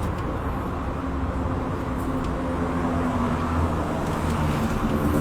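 Steady low rumble of outdoor background noise, with a faint hum through the middle and a few faint ticks.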